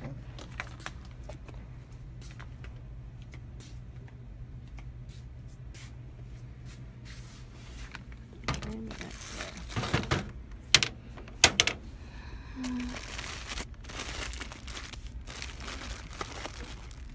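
Plastic-wrapped packs of toilet paper crinkling and knocking as they are handled on a store shelf, with a couple of sharp clicks near the middle, over a steady low hum.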